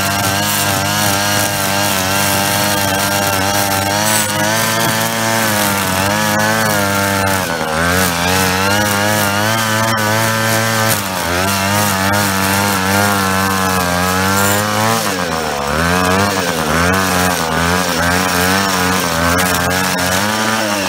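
25cc gas string trimmer running at high throttle while cutting grass. Its engine note dips and recovers several times as the line meets the grass.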